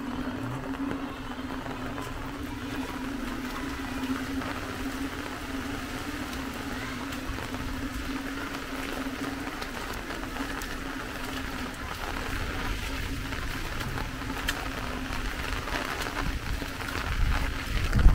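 A steady motor hum over a background hiss, fading out about two-thirds of the way through, with a low rumble swelling near the end.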